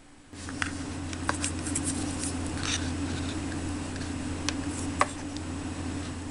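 Light clicks and taps of tiny dishes, a container and a small wooden cutting board being handled, with a brief scrape near the middle, over a steady low hum.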